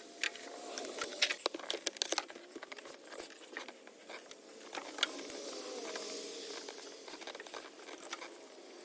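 Light metallic clicks and knocks, in a quick cluster about a second in and a single sharp click near five seconds, over a faint hiss: parts and tools being handled while a replacement alternator is fitted into a Ford F-150's engine bay.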